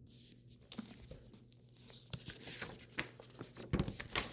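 Hands handling a hardback book: rustling of paper and cover with light taps, and a louder knock near the end.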